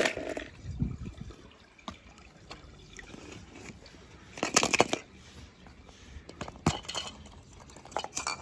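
Hard plastic toys being handled: a sharp clatter at the start, then scattered light clicks and a couple of short rustling bursts, one about halfway and one near three-quarters.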